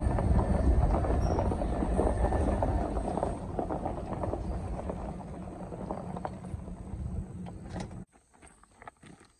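A vehicle driving, with a low engine and road rumble that grows steadily quieter as it slows, then cuts off abruptly about eight seconds in.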